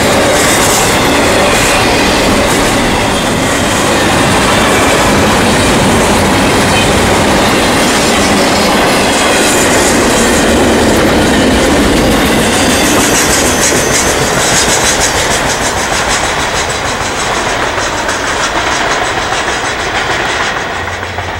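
Intermodal freight train's double-stack well cars rolling past close by: a steady rumble and clatter of steel wheels over the rails, easing off near the end as the last cars go by.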